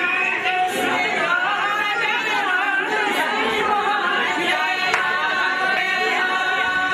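Several women singing together in a traditional Kashmiri wedding song, their voices overlapping.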